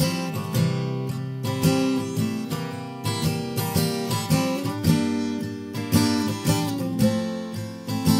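Acoustic guitar strumming chords in a steady rhythm: the instrumental intro of a recorded song.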